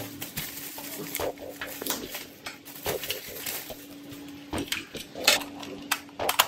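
Plastic packaging and bubble wrap rustling and crackling in the hands, with scattered clicks of a plastic toy blaster being handled, over a faint steady low hum.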